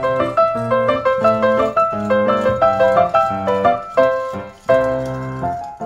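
Background piano music: a quick, lively run of notes.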